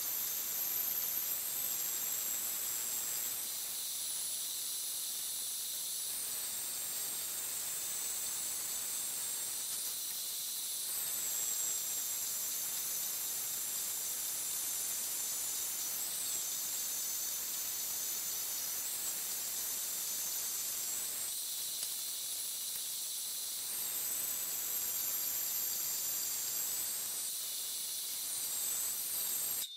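Vertical bandsaw cutting a 3/32-inch 52100 carbon steel knife blank along its profile: a steady hiss with a high whine that rises and falls in pitch, the hiss easing a few times for a second or two.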